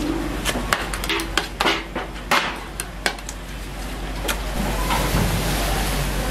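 Sharp clicks and knocks of thin metal rods tapping against the cutting board and the fryer's edge as fishcake paste is slid into the oil, followed from about four seconds in by a steady sizzle of the fishcakes deep-frying in hot oil.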